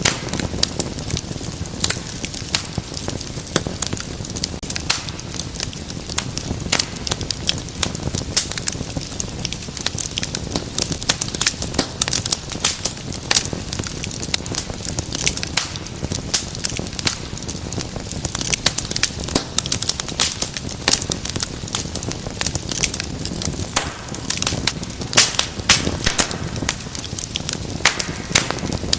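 Wood fire burning in a fireplace, crackling and popping steadily with many sharp irregular snaps over a low rushing flame noise.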